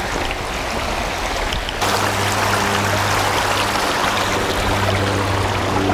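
Ravine stream flowing, a steady rush of water that gets suddenly louder about two seconds in. A steady low hum joins it at the same moment.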